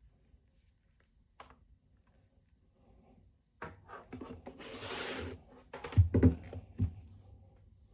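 Handling noises: a single click, then rubbing and scraping with a brief hiss, and a few sharp knocks about six seconds in.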